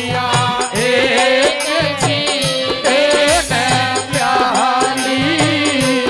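Live Haryanvi ragni folk music: a hand drum keeps a steady, repeating beat under a melody that bends and glides in pitch.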